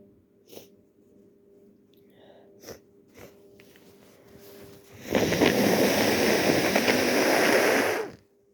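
A few short sniffles, then a loud, steady nose blow lasting about three seconds, from a nose congested with a cold.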